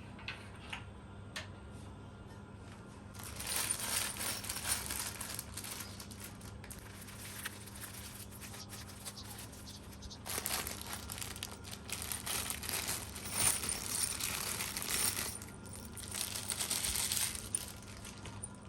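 Packaging crinkling and rustling as it is handled, in three spells of dense crackle: one about three seconds in, a longer one from about ten seconds, and a shorter one near the end.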